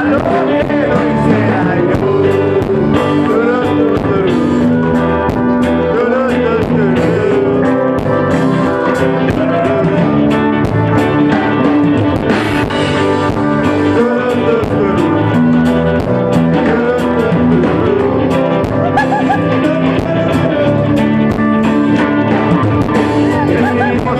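A live rock and roll band playing loudly through the PA: electric guitars and an acoustic guitar over a drum kit, with steady cymbal strokes and bending guitar lines.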